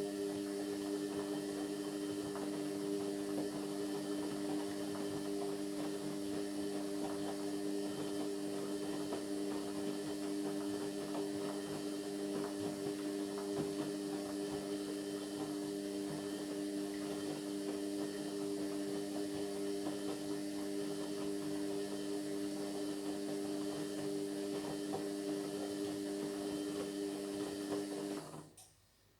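Indesit MyTime washing machine running with a steady motor hum, which cuts off suddenly about a second before the end.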